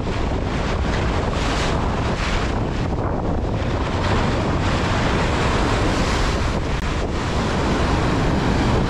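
Surf washing and foaming around the feet in shallow water, with strong wind buffeting the microphone: a loud, steady rush of noise.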